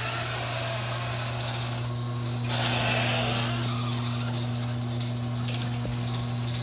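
LiftMaster 1/2 HP garage door opener motor running steadily with a low hum as it lowers the door. About two and a half seconds in, a louder rushing, rattling swell comes from the moving door.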